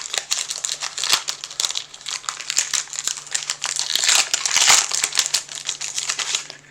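Foil wrapper of a Pokémon TCG booster pack crinkling as it is torn open and handled: a dense, irregular crackling.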